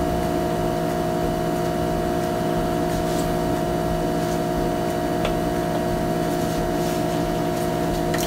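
A steady, even electrical or motor hum made of several pitched tones, with a few faint clicks of a wire whisk against the mixing bowl.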